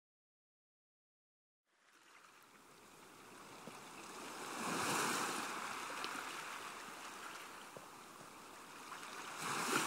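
Small sea waves washing onto a shore. The sound fades in after a second or two of silence and swells twice, about halfway through and again near the end.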